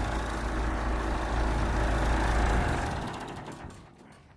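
Backhoe engine running with a heavy low rumble that cuts off abruptly about two-thirds of the way in, the rest of the sound dying away after it.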